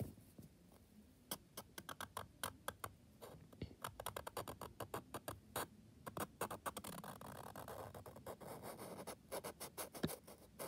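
Marker scratching across paper, first in many quick short strokes and then in a denser, more continuous stretch of drawing near the end, with one sharp tap just before it ends.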